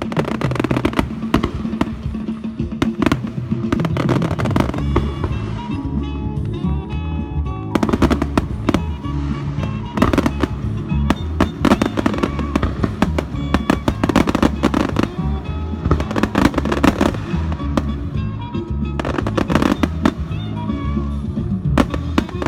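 Fireworks going off in dense clusters of bangs and crackles over loud music with a steady bass beat.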